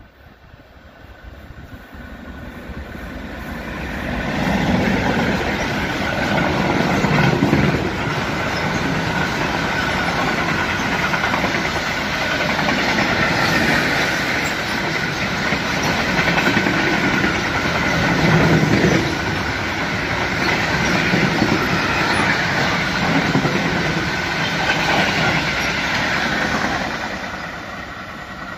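A long freight train of covered sliding-wall box wagons, hauled by an electric locomotive, passes close by at speed. It builds from a distant approach over the first few seconds into a loud, continuous rumble and clatter of wheels on rail with recurring heavier surges. It fades as the train recedes near the end.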